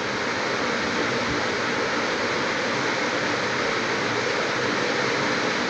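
A steady, even hiss that runs on without a break.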